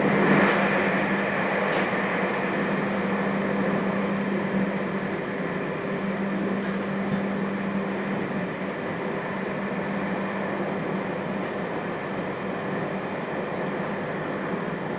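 Interior running noise of a JR Hokkaido 721 series electric train with thyristor phase control, heard inside the KuMoHa 721 motor car: a steady rumble of wheels on rail with a steady electrical hum over it. The noise surges briefly louder just after it begins, then settles.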